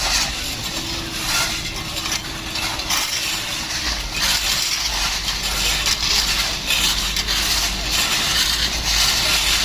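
Railway track-work site noise: continual crunching and scraping with small metallic clinks, over the low rumble of work machinery.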